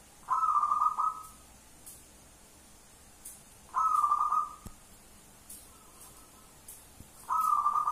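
Zebra dove (perkutut) of the local Indonesian strain cooing: three coos near 1 kHz, each just under a second long, about three and a half seconds apart.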